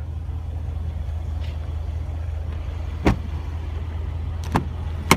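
A 2016 Range Rover Sport SVR's rear door shutting with one sharp knock about three seconds in, followed by two lighter clicks near the end, over a steady low hum.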